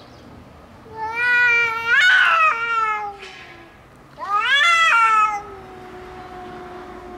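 Domestic cats yowling at each other in a territorial standoff: two loud, wavering yowls, the first starting about a second in and the second about four seconds in, then a quieter long low call that slowly slides down in pitch.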